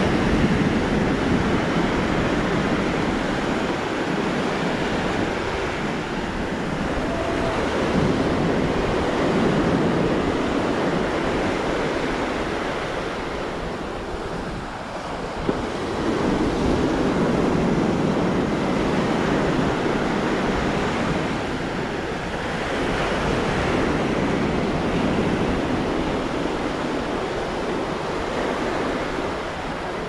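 Atlantic surf washing onto the beach, a continuous rush that swells and eases every few seconds, with wind on the microphone.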